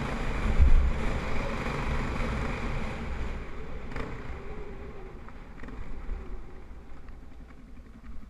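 Yamaha TTR250's single-cylinder four-stroke engine climbing a dirt hill under throttle, then easing off so that the engine note dies away gradually from about three seconds in as the bike slows. There is a single sharp knock about four seconds in.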